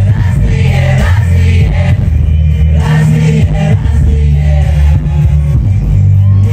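Loud live pop music over a concert PA system: a heavy bass line with singers' voices over it.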